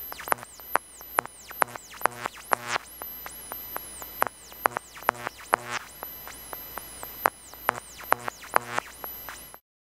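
Hard drive spindle motors, circuit-bent and driven by control voltage, picked up electromagnetically by induction coils: an irregular run of clicks about two or three a second, many with short pitched blips and high whistles that fall in pitch, over a faint hum. The sound cuts off suddenly near the end.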